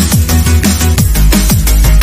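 Loud electronic dance music with a fast, steady beat, heavy deep bass and repeated falling bass notes.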